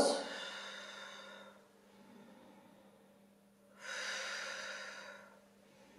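A woman's breathy exhale of about a second and a half, starting nearly four seconds in, as she breathes through a held Pilates pose. It opens on the fading end of a spoken count, with a faint steady hum underneath.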